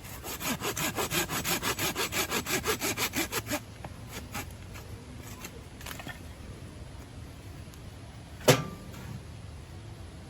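Rapid, even rasping strokes, about six or seven a second, for about three and a half seconds. A few light taps follow, then one sharp knock about eight and a half seconds in.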